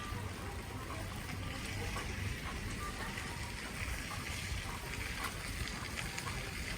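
Steady patter of falling wet snow, with scattered faint drips and taps.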